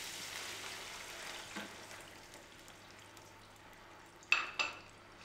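Food sizzling in a frying pan on the stove, the hiss dying down over the first few seconds. Near the end come two sharp clinks about a third of a second apart.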